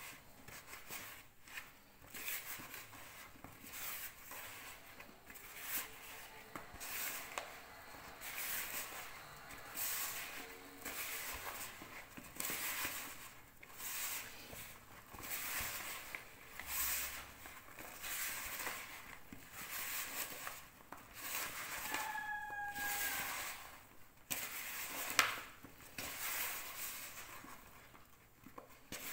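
Hands kneading and squeezing butter with powdered sugar in a plastic bowl: soft, rhythmic squishing and rubbing about once a second. A brief falling high tone sounds about three-quarters of the way through, and a single sharp knock a little after it.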